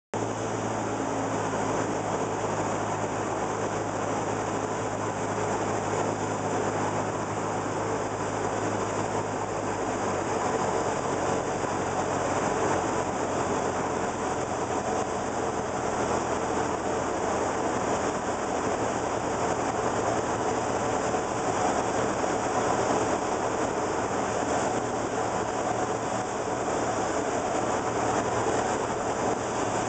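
Cessna 172's piston engine and propeller droning steadily, with airflow noise, heard inside the cabin on approach. The low engine tone changes about ten seconds in.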